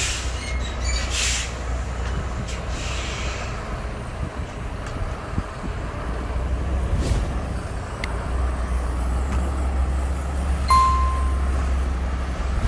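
Heavy truck diesel engine running as the truck drives slowly across a paved lot, with short air hisses about one and three seconds in. A brief high beep sounds near the end.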